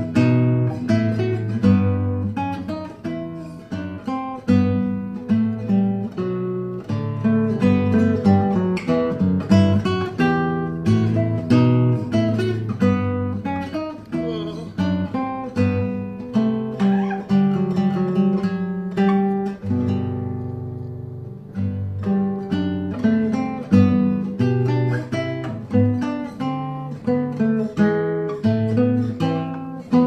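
Background music: a solo acoustic guitar playing a brisk piece, plucking a melody over a moving bass line.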